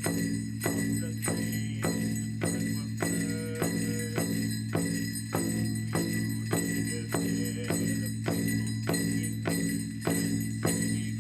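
Large powwow drum struck in a steady, even beat of about two strokes a second, with steady high ringing tones above the beat.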